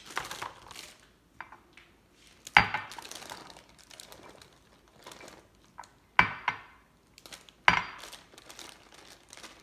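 Kitchen handling as butternut squash is measured out by the cup and tipped into a crockpot: light rustling and small clicks, broken by three sharp knocks, one a couple of seconds in and two more close together later on.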